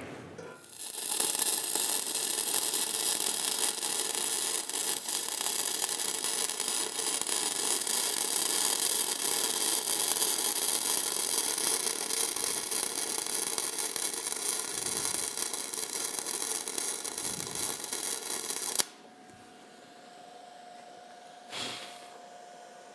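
Flux-cored wire-feed welding arc crackling steadily while tack welding a steel plate into a rusty steel wheel rim, cutting off abruptly about 19 seconds in. After it come a faint steady tone and one short click.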